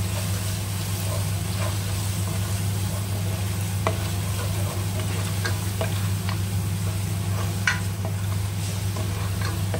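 Yogurt and fried onions sizzling in hot oil in a pan while a spatula stirs and scrapes through them, with scattered clicks of the spatula against the pan over a steady low hum. This is the yogurt being fried into the onion masala to cook off its raw smell.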